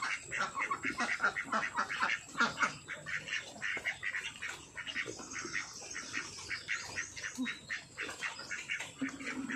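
A flock of domestic ducks quacking in a rapid, overlapping chatter as they crowd around scattered grain.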